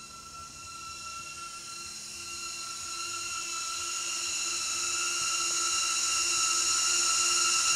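HoverAir selfie drone's propellers whining at a steady high pitch, growing steadily louder.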